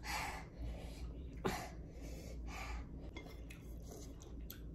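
Small eating noises at the table: a few breaths and light clicks of food and fingers on a plate, with one sharper knock about a second and a half in.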